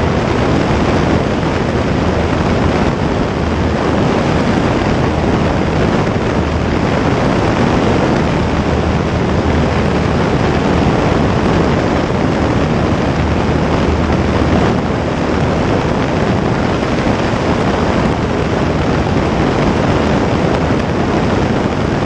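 Single-engine light aircraft's piston engine and propeller running steadily in a climb after take-off, heard through heavy wind rush on an externally mounted camera microphone.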